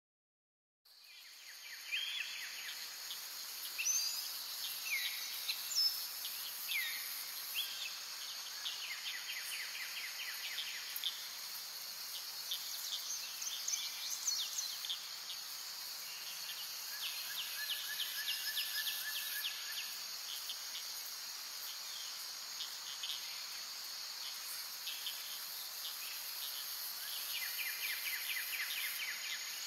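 Forest ambience: a steady high-pitched insect drone with birds calling over it, short chirps, quick rising and falling whistles and rapid trills. It fades in about a second in.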